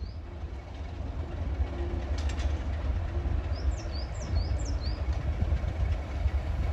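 Heritage diesel locomotive engine running with a deep, steady low rumble that grows slightly louder.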